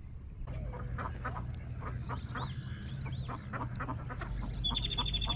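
Ducks quacking repeatedly. A steady high-pitched whir starts near the end.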